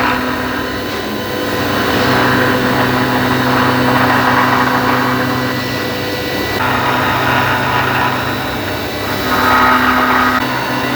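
Hitachi Seiki VM50 CNC vertical milling machine cutting a steel mold with an 8 mm ball-nose end mill at 3800 rpm. A steady spindle hum runs under a hissing cutting noise that swells and eases as the tool moves over the surface, loudest near the end.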